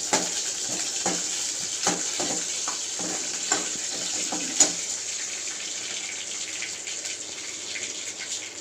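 Whole spices (cinnamon, cloves and fennel seeds) sizzling in hot oil in a metal kadai, a steady hiss. A metal ladle stirring them clinks against the pan several times in the first five seconds.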